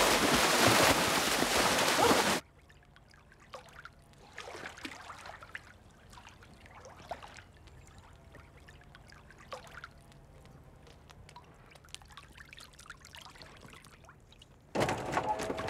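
Loud splashing of swimming-pool water that cuts off abruptly a couple of seconds in. Then faint, scattered trickling and lapping of calm pool water, until loud splashing starts again suddenly near the end.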